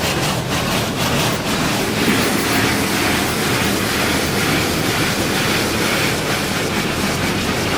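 Automatic car wash water jets spraying onto a car, a loud hiss that pulses about four times a second at first, then turns into a steady rush about a second and a half in.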